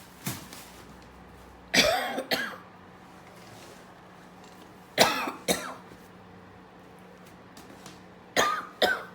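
A person coughing in a morning cough on first waking. There is one faint short cough at the start, then three double coughs about three seconds apart, each pair a sharp hack followed by a second one half a second later.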